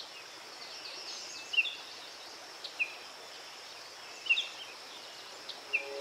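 Forest birds chirping in short clusters of quick notes every second or two, over a steady hiss and a thin, steady high insect drone.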